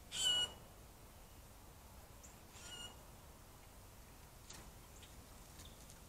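A bird gives a short call right at the start and a fainter second call about two and a half seconds later, with a few faint clicks near the end.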